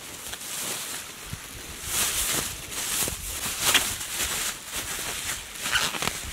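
Black plastic bag rustling and crinkling in irregular swishes as it is stuffed and squeezed down by hand.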